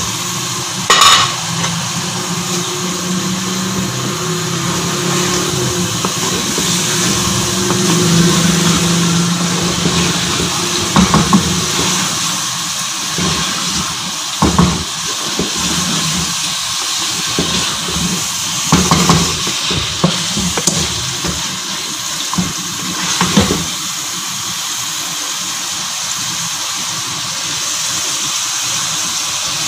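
Chicken pieces sizzling as they fry in oil and onion-tomato masala in a metal pot, stirred with a wooden spoon that knocks against the pot now and then. This is the bhuna stage, searing the chicken in the masala.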